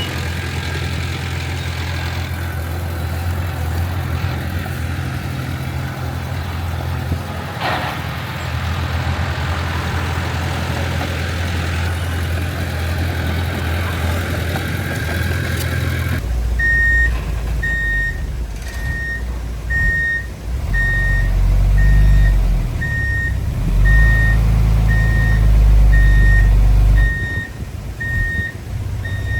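Heavy diesel earthmoving machinery running steadily. After an abrupt cut about halfway, a reversing alarm beeps about once a second over a deep engine rumble that swells louder twice.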